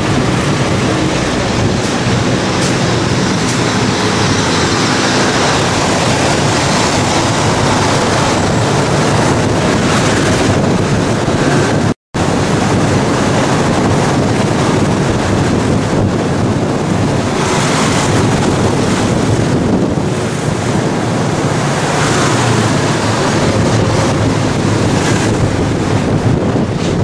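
Wind rushing over the microphone, mixed with the engine and road noise of a moving vehicle. The sound cuts out completely for an instant about twelve seconds in.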